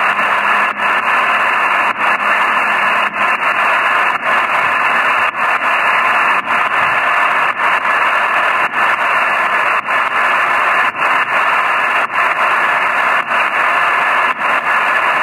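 Hiss and static from a shortwave HF receiver tuned to the 8122 kHz voice channel with no one transmitting, held to the narrow voice band of the radio. The steady hiss is broken by many brief dropouts.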